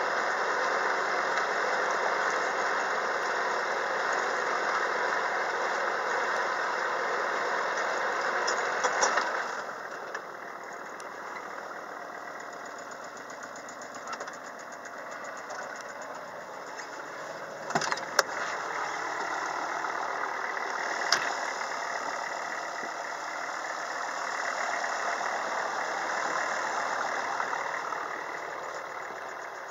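Kubota tractor's diesel engine running while its converted rotary tiller cuts and throws soil along an earth levee. The noise gets quieter about nine seconds in, a few sharp knocks come around the middle, and it swells again later.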